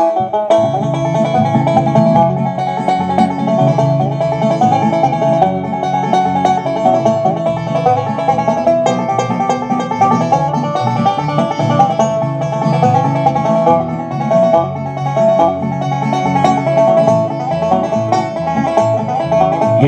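Live bluegrass band playing an instrumental intro: banjo, acoustic guitars and upright bass, at a steady bright tempo.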